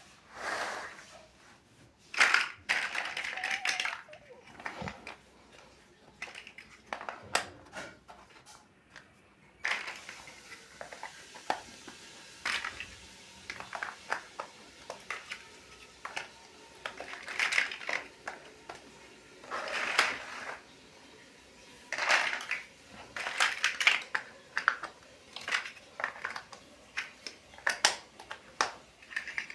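Plastic building bricks clicking and clattering as they are handled and pressed together, in irregular bursts of small clicks.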